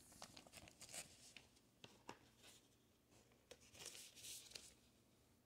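Faint handling noise: scattered light ticks and soft rustles of a print in a clear plastic sleeve being moved and laid on a wooden table, with a short brushing rustle about four seconds in.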